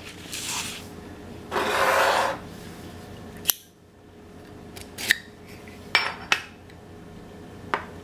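Rustling of plastic packaging as a Zippo lighter is taken out of its display box, then about five sharp metal clicks and clinks, spread over the second half, as the lighter's lid is opened and its insert pulled from the metal case.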